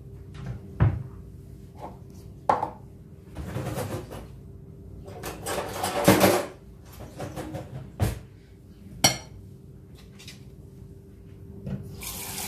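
Kitchen utensils and dishes being handled: scattered sharp knocks and clinks, with a longer clatter about six seconds in. A tap starts running near the end.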